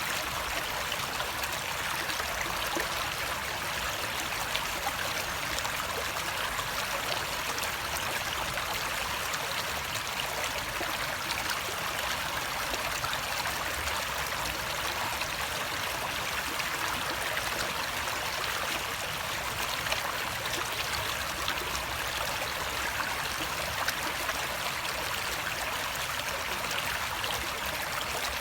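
Running water flowing steadily, an even rushing hiss with no breaks or changes.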